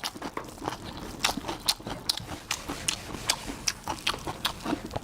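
A person chewing and lip-smacking boneless chicken feet close to the microphone: a run of quick, irregular wet clicks and crunches.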